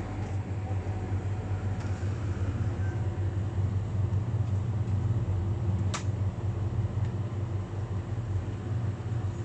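Steady low hum of a refrigerated supermarket display case, with a single sharp click about six seconds in.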